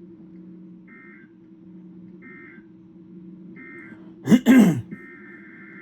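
Emergency Alert System SAME digital data tones: three short warbling bursts about a second apart, the end-of-message code closing the warning, then near the end the longer burst of the next alert's header begins. About four seconds in, a man clears his throat loudly twice. A faint steady hum runs underneath.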